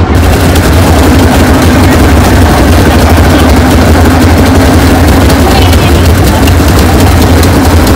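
ATV (quad bike) engines running close by: a loud, steady low engine rumble.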